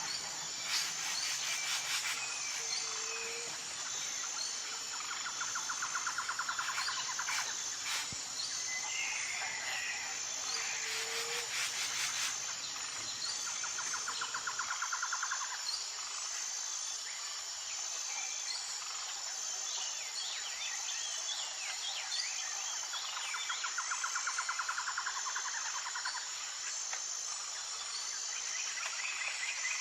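Jungle ambience: a steady, high insect drone with an even pulse, under bird calls. Trills recur every few seconds and short chirps are scattered between them.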